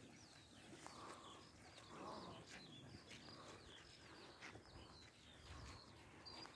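Faint, repeated chirping of small birds, many short high calls in quick succession, with faint distant voices underneath.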